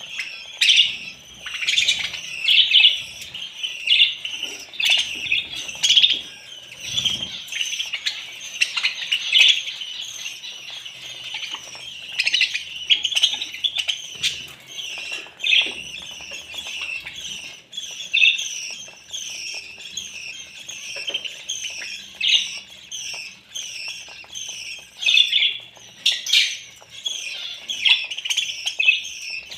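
A flock of budgerigars chirping and chattering without pause while feeding together at a food bowl.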